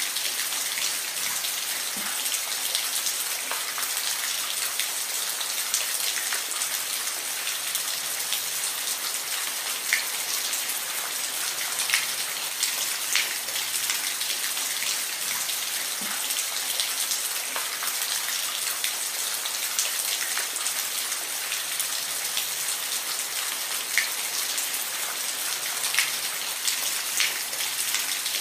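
Steady rain falling, an even hiss with scattered individual drops ticking on a hard surface.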